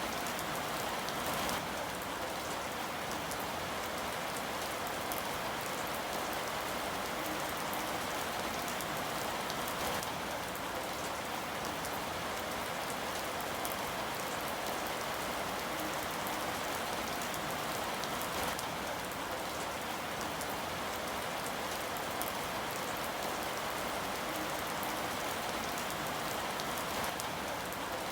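Steady rain falling: an even hiss with scattered drop ticks, unchanging throughout.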